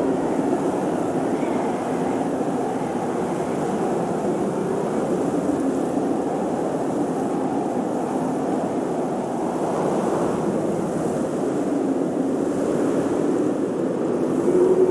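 Strong snowstorm wind blowing steadily, a dense rush with faint wavering whistles that drift in pitch, swelling a little near the end.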